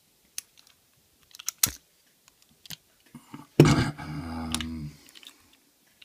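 Small metallic clicks and clinks as lock picks and steel discus padlocks are handled, with a sharp click about a second and a half in. Then comes a louder low drone lasting about a second and a half.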